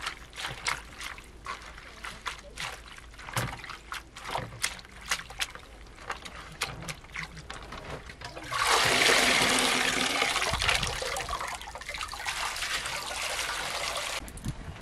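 Hands turning wet leafy greens in a plastic colander, with scattered small clicks and drips. About halfway through, water is poured from a plastic jug over the greens and splashes through the colander into the basin below.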